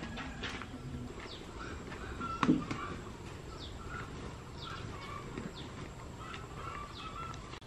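Small birds chirping: short, high, falling chirps repeated about once a second. A single loud knock comes about two and a half seconds in.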